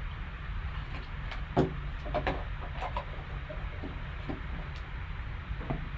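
Gloved hands handling a cardboard trading-card pack, giving a few short rustles and taps: the loudest about a second and a half in, several more through the middle and one near the end, over a steady low room hum.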